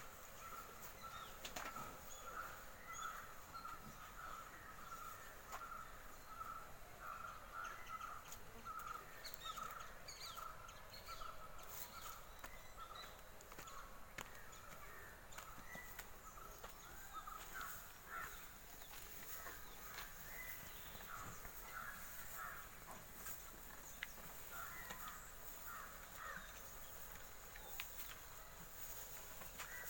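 Birds calling faintly: a short call repeated about twice a second for roughly the first ten seconds, then scattered chirps.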